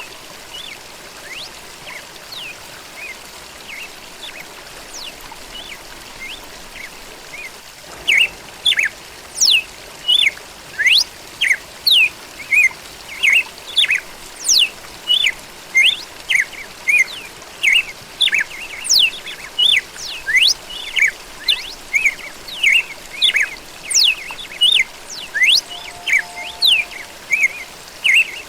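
Red-cowled cardinal (galo-da-campina) singing, a rapid run of loud, sharp, sweeping chirps and notes that starts about a third of the way in, after a stretch of only faint chirps. A steady soft hiss, like running water, lies underneath.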